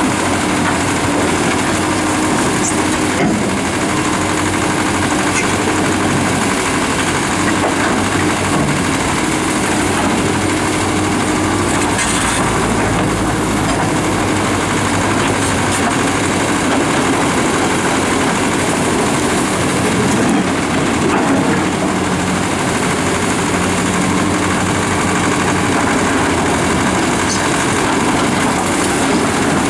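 Fiat-Kobelco EX455 and EX355 hydraulic excavators working in gravel, their diesel engines running steadily under digging load, the engine note shifting as the hydraulics work. A couple of faint knocks come through.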